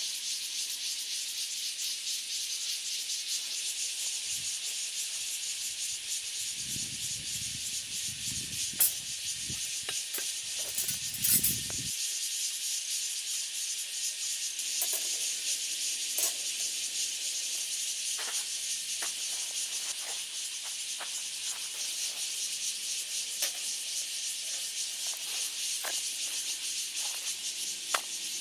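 Steady high-pitched hiss of a chorus of night insects. A few soft clicks and knocks sound through it, with a low rumble from about six to twelve seconds in.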